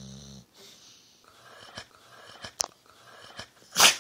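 A Staffordshire terrier-type dog snuffles in three raspy breaths through its nose, then gives one loud sneeze near the end: an allergic sneeze from ragweed.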